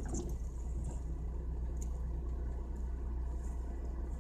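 Chevrolet Celta's engine idling while the car is stopped, a steady low hum heard from inside the cabin, with a few faint ticks.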